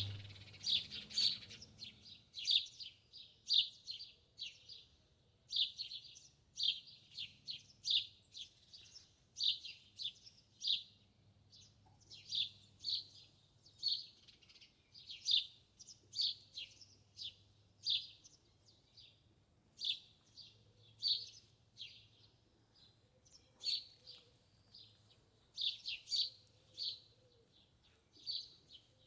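Small birds chirping: short, sharp, high chirps repeated about once or twice a second, without a pause.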